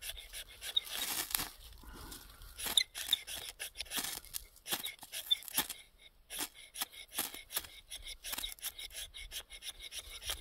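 Ferro rod scraped again and again with a steel striker, a run of quick, rasping strikes throwing sparks onto a gob of lip balm, with a short lull about six seconds in.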